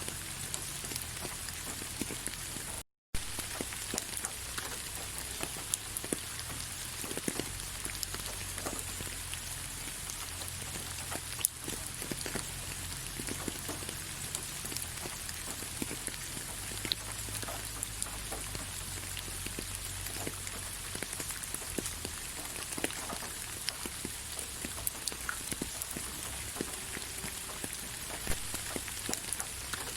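Steady rain falling on leaves: an even hiss with many scattered sharp drop ticks. The sound cuts out for a split second about three seconds in.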